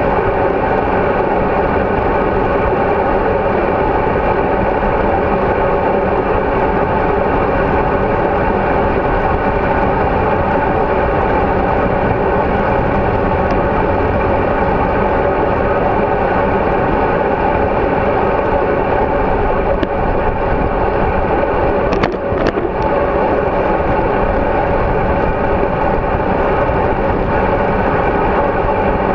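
Steady rush of wind and road noise on a bike-mounted GoPro camera in its housing as the bicycle rolls along at speed, with a couple of short knocks about three-quarters of the way through.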